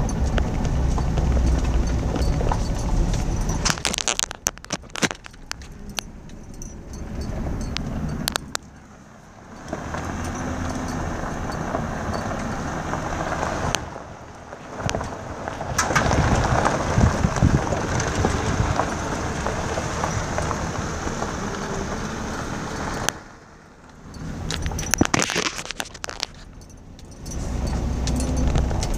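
A vehicle driving slowly on a gravel road, its tyres crunching and crackling over the stones along with the engine and cab rattles. It drops quieter for a few seconds three times.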